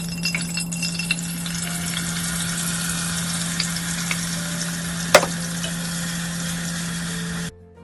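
Curry seasoning paste sizzling as it fries in hot oil in a Dutch pot and is stirred with a spoon, with small clicks throughout and one sharp knock about five seconds in. The sound cuts off abruptly shortly before the end.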